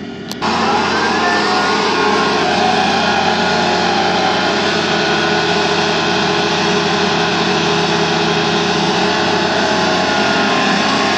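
Tractor diesel engine running steadily under load while pulling a tine cultivator through a wet paddy. The sound cuts in with a click just after the start.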